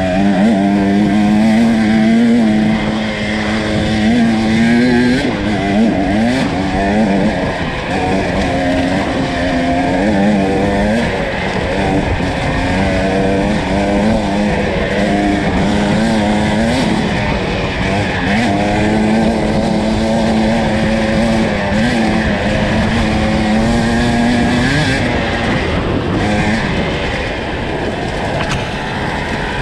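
Enduro dirt bike engine running under constantly changing throttle, its pitch rising and dipping with short blips of revs, the steady note falling away near the end.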